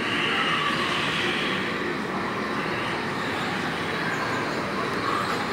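Go-karts running round an indoor track: a steady whir of motors and tyres, with a higher whine loudest in the first couple of seconds.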